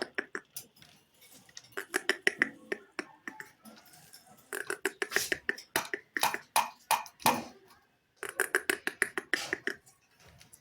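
Indian ringneck parakeet chattering in runs of rapid clicky pulses, three bursts of a second or more each with short pauses between.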